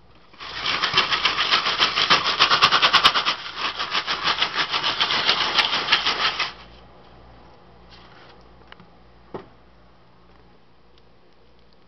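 Popcorn kernels popping rapidly inside a stovetop foil-dome popcorn pan, a dense rattling crackle. The rapid popping stops suddenly about six and a half seconds in, leaving only a few isolated pops.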